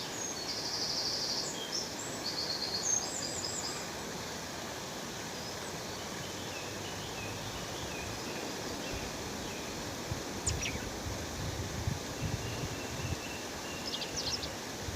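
Waterfall rushing steadily, with birds chirping over it: a burst of rapid trilled chirps in the first three seconds, a single sharp call about ten seconds in, and a few more chirps near the end.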